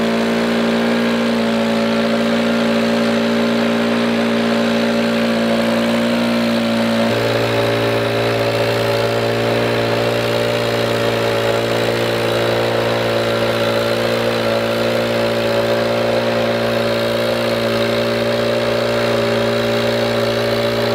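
Stihl gas backpack blower's two-stroke engine running at high throttle while blowing snow off a path. It is a loud, steady drone whose lower tone shifts about seven seconds in.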